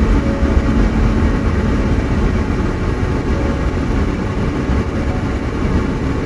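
Steady rumble of road, engine and wind noise from a Jeep driving, loud and unbroken.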